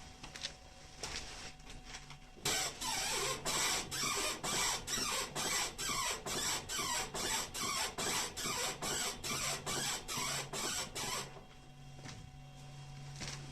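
Honda CR-V front suspension creaking as the steering wheel is turned back and forth: a rhythmic creak about twice a second that starts a couple of seconds in and stops near the end. The owner takes it for the ball joints, which have no play but are short of grease.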